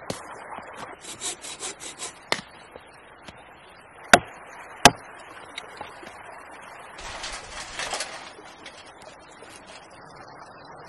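Wood being sawn by hand: a run of quick rasping saw strokes, then two sharp loud knocks about a second apart, and a longer stretch of rasping strokes later.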